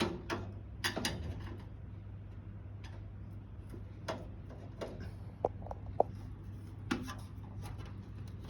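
Scattered clicks and light knocks of a screwdriver being fitted to the power supply unit's screws and metal case, with three short metallic tinks about five and a half to six seconds in. A low steady hum runs underneath.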